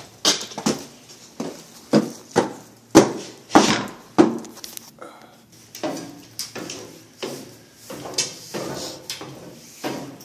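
Footsteps going down a spiral staircase, a step roughly every half second, each a sharp knock with a short ring.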